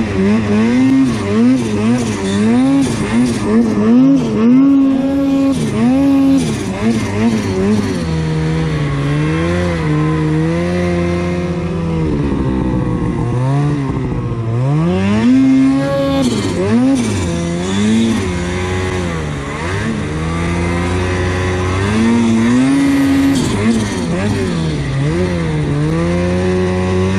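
Snowmobile engine revving up and down while riding through deep powder snow: quick repeated rises and falls in revs for the first several seconds, then slower, longer swings as the throttle is worked.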